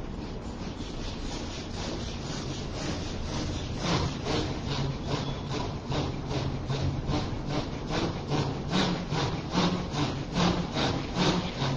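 Rapid, rhythmic forceful breathing during zikr qalbi, about three breath strokes a second over a low hum, growing stronger about four seconds in.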